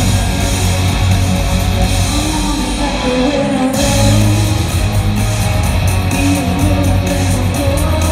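Live rock band playing loud, with strummed electric guitars, bass and drums, heard from the crowd in a large hall. About three and a half seconds in, the cymbals drop out for a moment before the full band comes back in with heavier bass.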